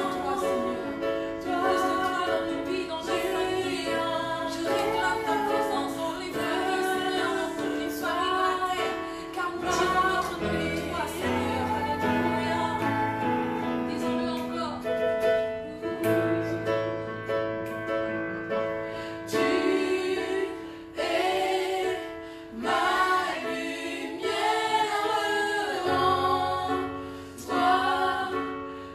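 A woman and several children singing a gospel worship song together, with an electronic keyboard holding sustained chords and bass notes underneath.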